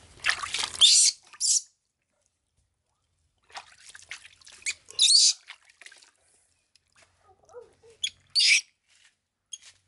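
Water splashing in a plastic tub as a baby monkey is dipped and washed by hand: a loud splash in the first second and a half, then shorter splashes about five seconds in and again near the end, with drips between.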